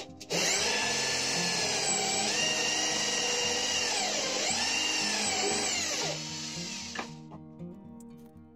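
Corded electric drill spinning a hole saw through a wooden strip. The motor's whine dips in pitch several times as the saw bites under load, then winds down and stops about six to seven seconds in.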